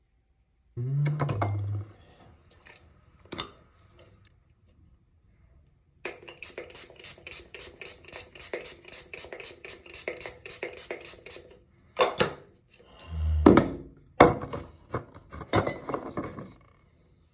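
A fragrance spray bottle being pumped at the neck: several short sprays, the loudest near the end. In the middle comes a fast, even run of small clicks, about five a second, lasting several seconds, and about a second in there is a low thud.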